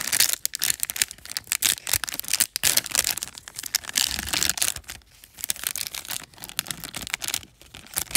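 Foil wrapper of a Topps trading-card pack crinkling in the hands as it is worked open and torn. The crackling is dense for about five seconds, then quieter.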